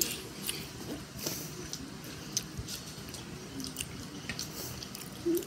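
A person chewing a mouthful of fried rice with wet mouth sounds, giving scattered small clicks and smacks.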